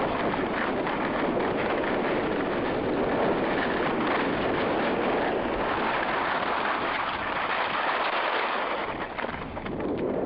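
Skis sliding and scraping over snow on a downhill run, with wind rushing over the microphone; the noise dips briefly near the end.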